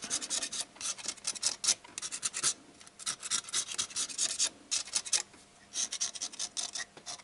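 Knife blade scraping old head-gasket remains, stuck fast to the block, off the cast-iron deck of a VAZ 2111 cylinder block. It goes in runs of quick short strokes with a few brief pauses.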